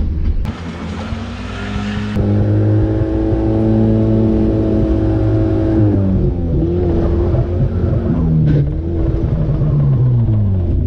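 Suzuki Vitara 4x4's engine revving hard off-road, with a rushing hiss in the first couple of seconds. The engine is held at high revs for a few seconds, drops about six seconds in, then revs up and down.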